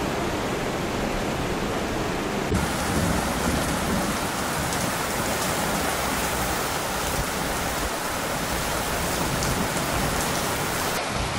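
Rushing floodwater, then from about two and a half seconds in, torrential rain pouring down steadily on a flooded street and pavement.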